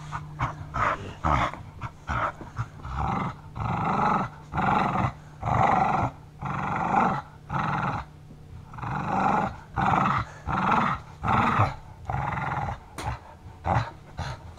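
Dog growling in play while tugging on a rope toy: a string of growls about once a second, the longest ones in the middle.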